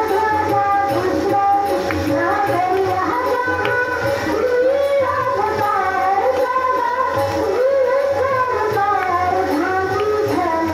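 A woman singing a devotional bhajan into a microphone, accompanied by harmonium and a hand-played dholak drum.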